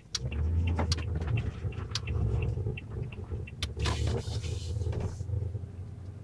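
Car driving at low speed, heard from inside the cabin: a steady low rumble of engine and tyres with scattered small knocks and rattles, and a brief rush of hiss about four seconds in.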